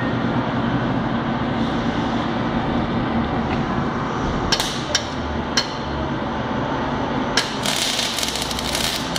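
MIG welding arc from an ESAB Digipulse 450i welding power source, striking about three-quarters of the way in and then crackling steadily. A few sharp clicks come about halfway through, over a steady background hum.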